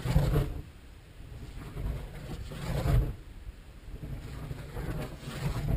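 Kinetic K2M dynamic-soaring glider passing on its high-speed loops: a swell of air noise about every two and a half to three seconds, three passes in all, over a steady low rumble.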